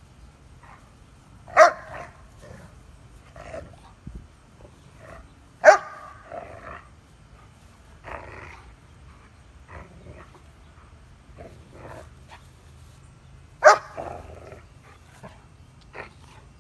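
Two young dogs, a Saint Dane and a Canis Panther, play-fighting: three loud barks, about a second and a half in, about six seconds in and near the end, with quieter growls and yips between.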